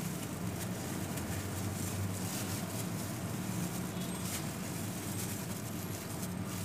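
Steady low background hum, with faint light clicks and rustles over it.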